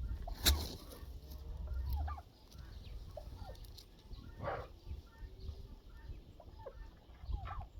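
Farmyard poultry clucking and calling in short, scattered notes, with one louder call a little past the middle. A sharp knock sounds about half a second in.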